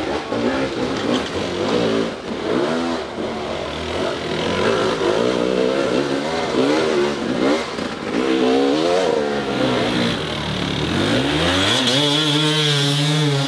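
Dirt bike engines revving up and down repeatedly under load on a steep, slippery climb, then held at a steady high rev near the end.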